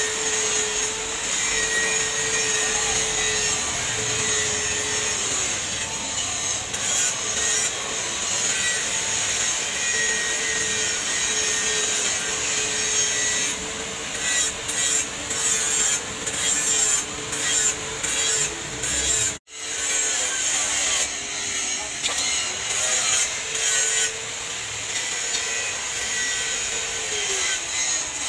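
Charcoal forge fire burning hard under forced air: a steady rushing hiss with a steady hum from the blower and some crackling. It cuts out for an instant about two-thirds through.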